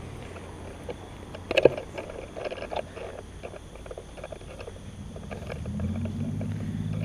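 Shuffling steps and scuffs on paving, with one sharp knock about a second and a half in. From about five seconds in, a low pulsing drone rises and keeps going.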